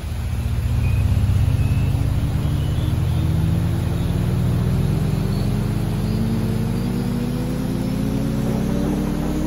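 Heavy rain falling and running off a roof edge. Under it, a loud low drone rises slowly and steadily in pitch the whole time.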